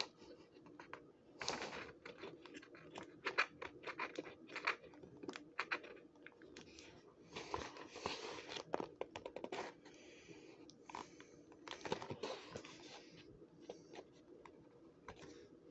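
Fingers scratching and picking at clear tape and cardboard on the back of a toy-car display tray: irregular quiet clicks, scrapes and crinkling rustles as the tape is worked loose.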